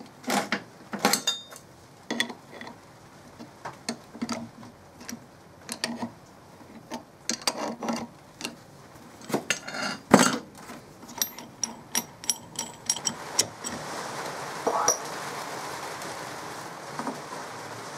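Spanner turning the clamp nuts and steel clamp bars being lifted off a mild-steel cylinder block: a string of irregular metal clinks and knocks, the loudest a little past halfway. Over the last few seconds a steadier, even noise takes over.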